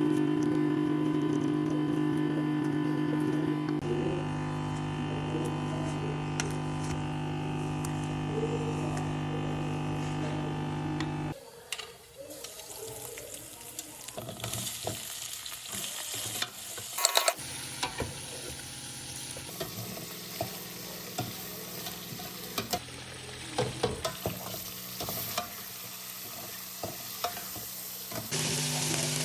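Food sizzling as it fries in a pan, stirred with a utensil that scrapes and clicks against the pan now and then. For roughly the first third a steady hum runs under it.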